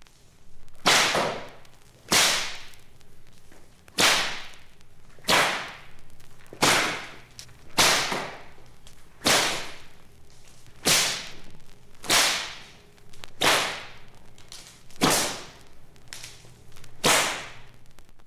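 A series of about a dozen sharp swishing cracks, one every second or two, each cutting off quickly.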